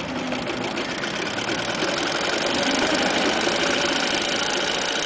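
Sewing machine running steadily, stitching a seam through cloth with a rapid, even needle rhythm.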